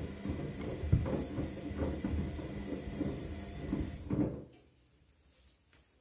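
Front-loading washing machine drum tumbling a load of shoes in water: repeated thuds of the shoes dropping against the drum, with sloshing and the motor's hum. The drum stops about four seconds in, for the pause between turns of the wash cycle.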